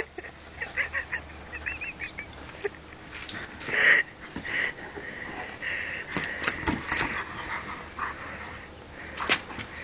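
A dog at play with a rubber ball in grass, with a series of short high squeaks and a few sharp knocks and rustles.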